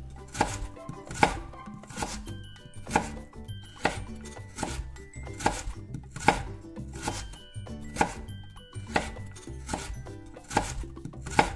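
Kitchen knife chopping peeled raw potatoes into large chunks on a cutting board, each cut ending in a knock of the blade on the board about once a second.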